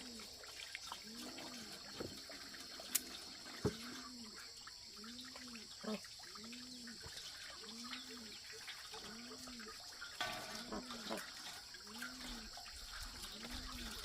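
Faint outdoor ambience: a low animal call that rises and falls, repeating about once every second and a half, over a steady high hiss. Two sharp clicks sound about three and four seconds in.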